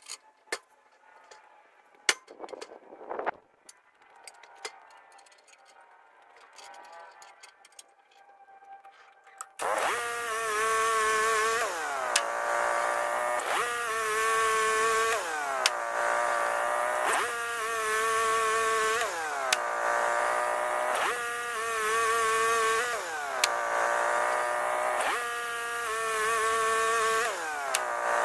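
Scattered light clicks and knocks, then the Wood-Mizer LT15 GO sawmill's gasoline engine comes in suddenly about a third of the way through. It runs loudly, its pitch dipping and recovering about every second and a half.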